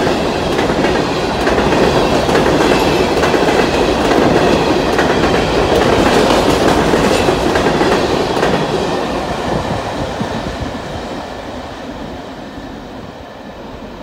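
Freight cars of a passing freight train rolling by on jointed track, wheels clicking over the rail joints with a faint high wheel squeal. About nine seconds in the sound begins to fade as the end of the train passes and moves away.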